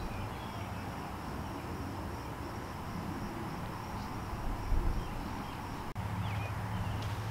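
Outdoor field ambience: a steady high insect drone with a few faint bird chirps over low rumble, the rumble becoming a steadier low hum after about six seconds.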